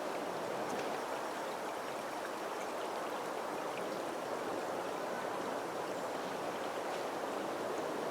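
A small creek flowing: a steady rush of running water.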